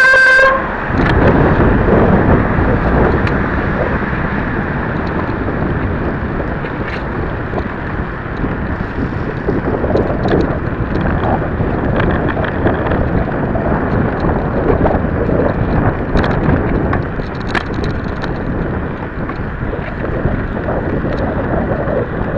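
Wind buffeting the microphone of a small camera on a moving bicycle, a loud, dense rumble with scattered light clicks and rattles. A brief pitched tone sounds at the very start and cuts off about half a second in.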